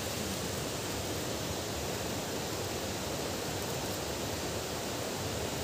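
Steady, even rushing hiss of outdoor background noise, with no distinct events.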